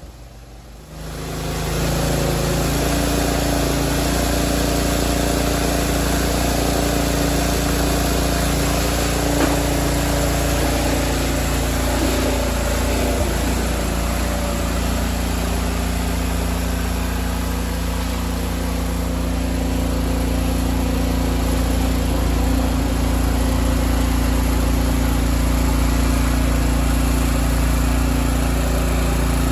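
1999 DR Brush Mower's engine running steadily, growing louder about a second in and then holding a constant pitch.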